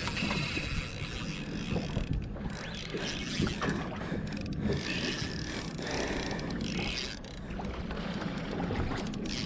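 Steady background noise on a small fishing boat: a low hum with water and wind on the microphone.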